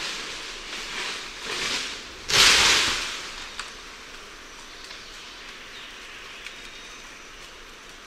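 Leaves and branches rustling and shaking as a lion-tailed macaque moves through a tree: a few swells of rustle, with a sudden loud shake about two and a half seconds in, then only the low hush of the forest.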